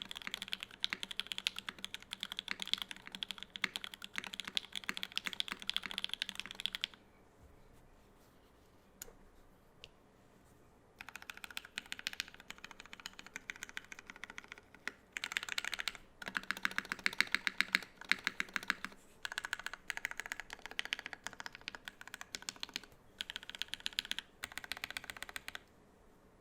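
Typing on a custom mechanical keyboard with lubed, filmed JWK Lavender linear switches in an aluminum plate under GMK keycaps: rapid keystrokes for about seven seconds, a pause of about four seconds with one or two single keypresses, then several more bursts of fast typing that stop shortly before the end.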